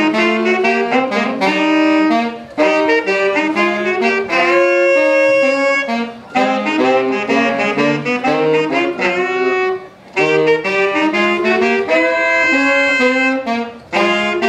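Two saxophones playing jazz together, in phrases of about four seconds with short breaks for breath between them.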